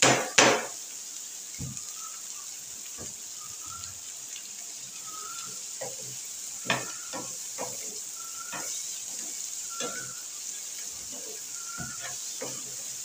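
Shredded chicken, green chillies and coriander sizzling in a frying pan on a gas burner while being stirred, with a loud knock right at the start and scattered lighter knocks and scrapes of the utensil against the pan.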